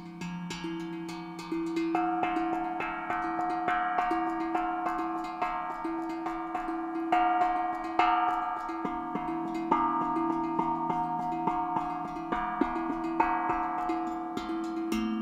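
Steel tongue drum played with the fingertips: a slow melody of ringing notes that sustain and overlap, growing louder about two seconds in.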